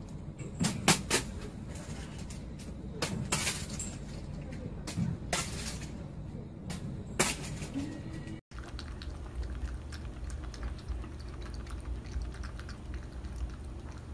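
A series of irregular sharp knocks and clinks, several a second at times. After a sudden cut about eight seconds in, a steady low hum with faint ticking follows.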